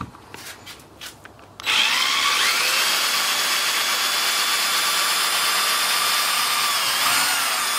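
Cordless drill spinning a screw extractor bit in a stripped screw head, backing the screw out of the wood. After a few light clicks, the drill starts about a second and a half in with a rising whine and then runs steadily at speed, its pitch wavering near the end.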